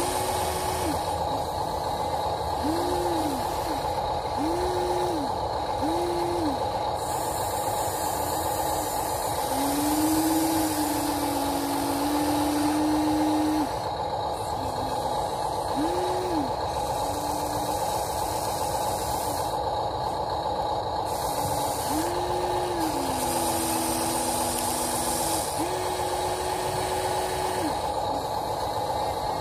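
Huina 1593 remote-control excavator's electric motors whining as the boom, arm and bucket are worked, each movement a short whine that rises in pitch, holds and drops away, over a steady hum.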